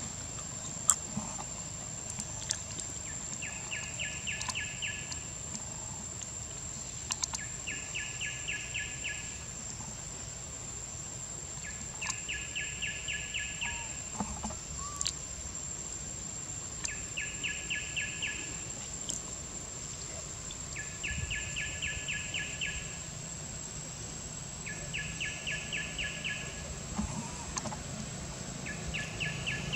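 Outdoor wildlife ambience: a steady high-pitched buzz, with a pulsed chirping call of about five pulses a second coming in two-second runs about every four seconds, seven times in all. A few faint sharp clicks are heard here and there.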